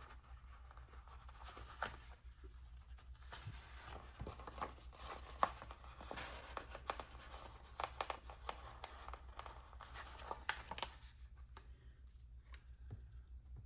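Paper and a sticker sheet being handled by hand: faint light rustling, crinkling and small clicks and taps, scattered irregularly, over a faint steady low hum.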